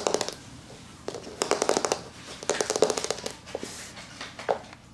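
A puppy chewing and gnawing on a red horseshoe-shaped chew toy, its teeth clicking against it in several short runs of rapid clicks.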